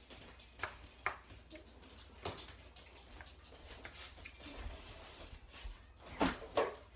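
Light kitchen clatter: a few scattered clicks and knocks of a utensil against cookware, with two louder short sounds near the end.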